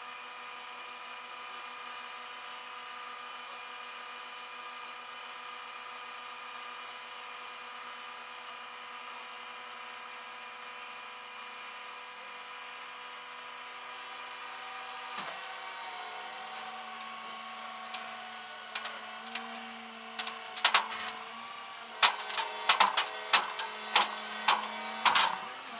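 A steady machine hum with several fixed tones, then, about two-thirds of the way in, a run of irregular sharp clicks and taps over it.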